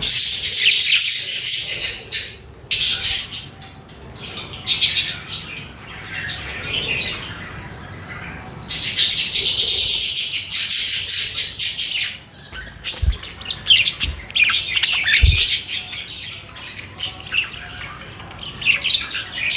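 Budgerigars chirping and chattering, with two long dense stretches, one at the start and one around the middle, and shorter bursts in between. A few soft low knocks come a little after the middle.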